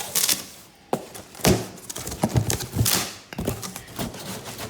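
Cardboard and plastic packaging being handled as a portable fridge freezer is unboxed: irregular knocks and thuds mixed with scraping and rustling.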